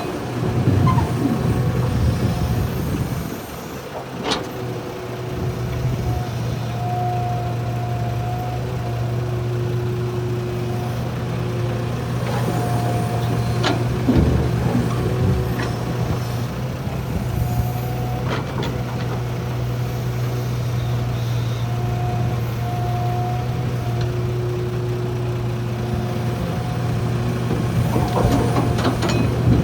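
Heavy diesel machinery running steadily with a low hum, a repeating on-off beep of a vehicle alarm over it, and a few sharp clanks.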